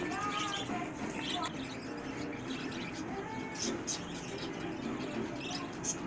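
Budgerigars chirping and warbling, a few short rising and falling calls, over a steady background hubbub.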